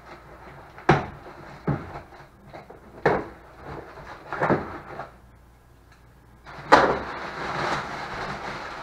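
A cardboard shipping box being handled and opened: several sharp knocks and thuds as the box is shifted and worked open, then, after a short lull, a loud crunch of cardboard followed by steady rustling of crumpled packing paper being pulled out.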